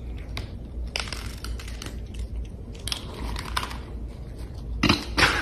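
Cats crunching dry kibble from a bowl: irregular crunches and clicks, with a louder cluster of crunches near the end.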